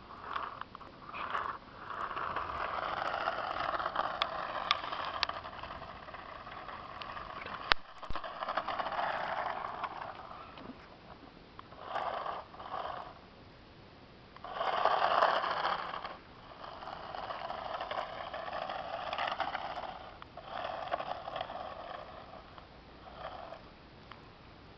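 Small electric motor of a toy drift RC car whirring in repeated bursts of one to several seconds, with a sharp click about eight seconds in.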